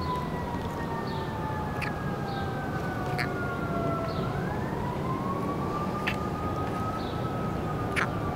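A siren wailing, its pitch falling slowly for about four seconds and then rising again, over steady background noise. Four short, sharp clicks are heard along with it.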